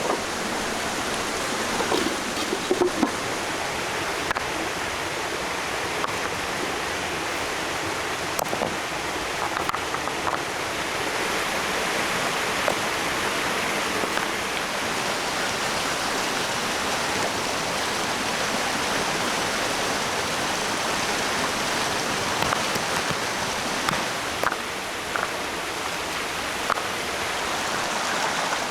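Steady rushing of flowing water, with a few short clicks and knocks now and then.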